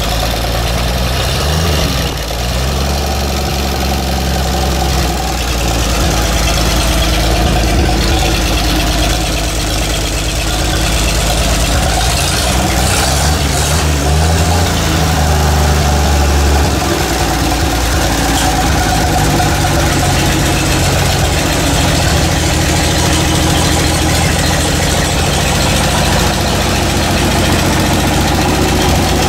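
Freshly rebuilt Chevrolet 235 inline-six running on an engine stand. Its speed rises and falls as the throttle is worked at the carburetor, once a couple of seconds in and again between about twelve and seventeen seconds in, then it settles back to a steady idle.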